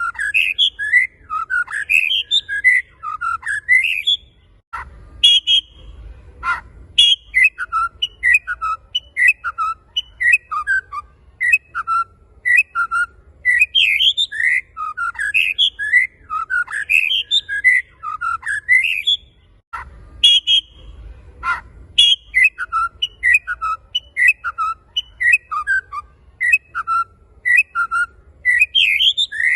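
Male white-rumped shama singing in full voice: a rapid, unbroken stream of varied whistled notes and trills. The song breaks off briefly twice, each time with a click.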